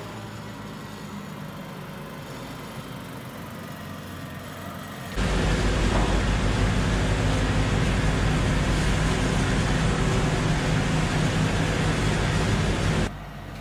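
A tractor engine runs steadily. About five seconds in, a much louder steady rushing din takes over: a tractor-driven straw bale shredder blowing chopped straw bedding across a cow barn. It stops abruptly near the end.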